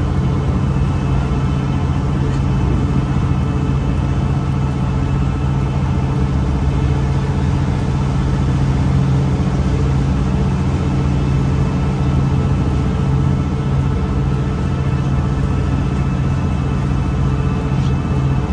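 A motor vehicle's engine running steadily: an unbroken low drone with an even hiss above it.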